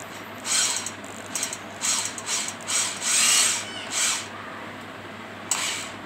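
Electric drill powering a homemade rod-bending machine, switched on in about nine short bursts, the longest about three seconds in, turning the machine's bending arm.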